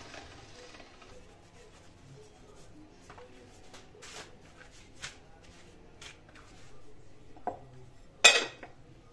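Faint rustling and light taps of a thin fresh egg-pasta sheet being handled and folded on a wooden board, then a sharp clink near the end as a plate is set over a glass bowl.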